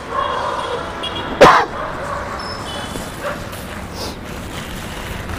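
A dog barks once, sharply, about a second and a half in.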